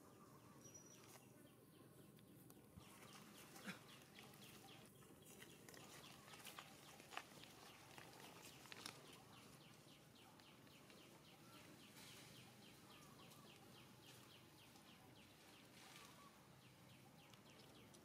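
Near silence: faint outdoor ambience, with a faint rapid run of short high chirps, about five a second, starting about six seconds in, and a few soft clicks.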